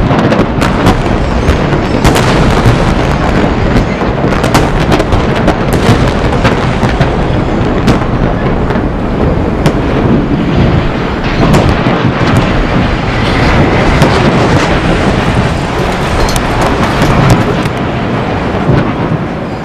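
Explosive demolition of reinforced concrete chimney stacks: a long, loud rumble of toppling and collapsing concrete, with many sharp cracks from the blasts and breaking concrete.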